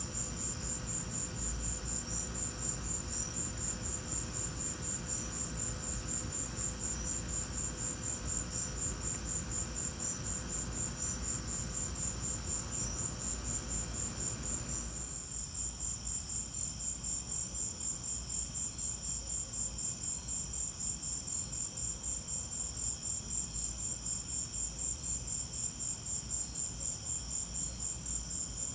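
Crickets chirping in a steady night chorus, a high pulsing trill that keeps an even rhythm. A soft background rush under them eases about halfway through.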